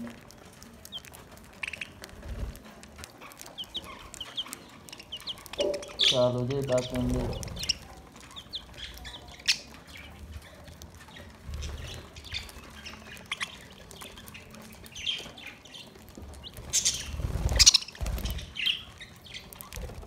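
A flock of budgerigars chirping and chattering with many short high chirps while they feed, with a short low call about six seconds in and a louder rustle near the end.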